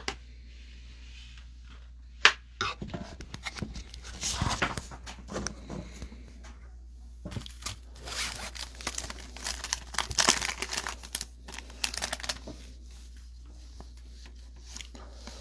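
Topps Update baseball card pack being ripped open, its wrapper tearing and crinkling in irregular bursts for about ten seconds, with one sharp click about two seconds in.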